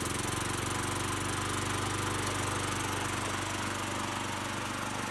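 Ariens lawnmower's Kohler engine running steadily just after starting, with a fast, even firing beat. It is the cold start that now catches and keeps running since the disconnected throttle cable was reconnected.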